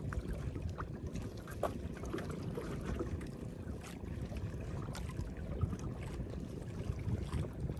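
Wind rumbling on the microphone and water moving against a small fishing boat at sea, with a few faint clicks scattered through.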